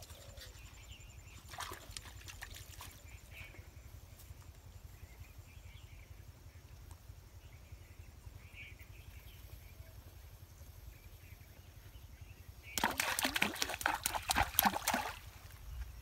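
Water hyacinth and shallow pond water being handled at the pond edge: a few light rustles early, then about two seconds of loud, dense crackling rustle and sloshing near the end.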